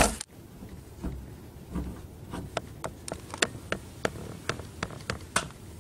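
Faint, irregular light taps and clicks, two or three a second, from a rubber monster-hand glove handled on a wooden tabletop.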